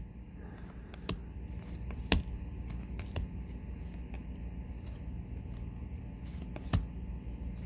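Trading cards being handled and flipped through by hand, with a few sharp clicks as cards are slid and snapped, over a steady low hum.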